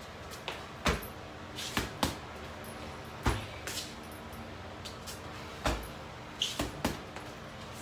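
Gloved punches and kicks striking an Everlast heavy punching bag: a run of sharp thuds, irregularly spaced, some landing in quick combinations of two or three.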